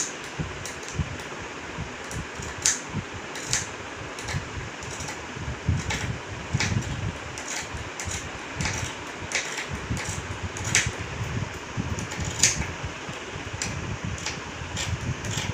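Scissors snipping through folded lining cloth, four layers thick, along a curved pattern edge: short, sharp cuts spaced irregularly, over a steady background whirr.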